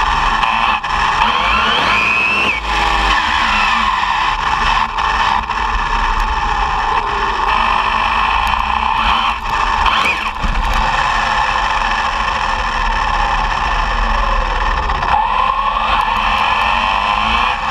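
ARRMA Typhon 6S RC buggy driving on pavement, heard from a camera on the car: its brushless electric motor and drivetrain whine, rising and falling in pitch with the throttle a few times, over tyre and wind rumble.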